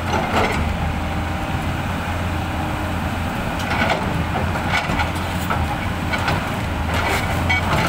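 Diesel engine of a Hyundai 450 hydraulic excavator running with a steady low hum as the bucket presses against a large quarried stone block to push it over. A few short faint knocks come through now and then.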